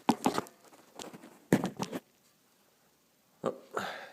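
A series of sharp knocks and clunks from metal parts being handled as a steering rack is worked into place in a front crossmember, in a few short clusters with pauses between.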